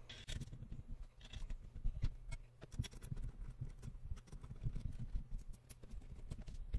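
Scattered light clicks and taps of small metal screws being handled and threaded by hand into a metal lathe base.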